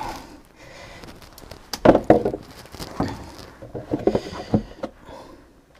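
Hand-handling sounds of a spin-on water-separating fuel filter being unscrewed and a plastic drain bucket shifted beneath it: scattered clicks, scrapes and knocks, loudest about two seconds in and again around four seconds.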